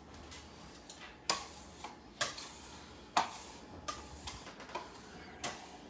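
Dishes and kitchen utensils being handled and set down during clean-up: a series of sharp clinks and clacks, the three loudest about a second apart, one with a short ring.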